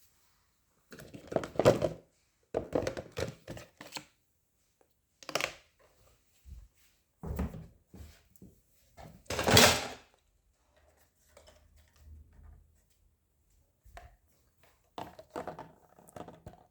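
Irregular knocks and clunks of hard objects being handled, coming in bunches with quiet gaps between. The loudest is a longer clatter a little past the middle.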